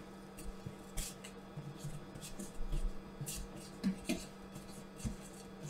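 Spatula stirring and scraping buttery pretzel crumbs around the sides of a stainless-steel food processor bowl: faint, irregular scrapes and light knocks.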